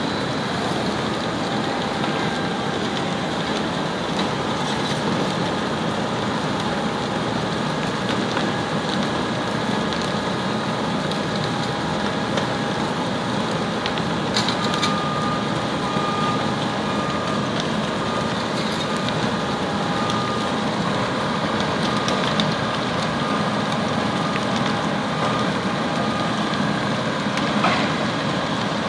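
Steady din at a large building fire: fire engines' diesel engines and pumps running with faint steady whines, mixed with the rush of the fire and hose streams. A few sharp cracks stand out about halfway through and near the end.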